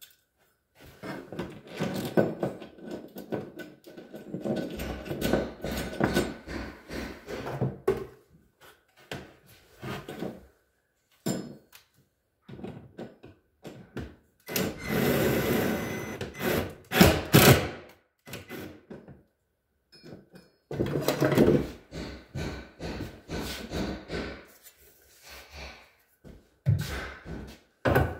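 Knocking, scraping and rustling of hands, tools and metal hardware working inside a wooden cabinet, in several bouts with short pauses between, while a molly anchor and rear drawer-slide mounting bracket are fitted at the drywall.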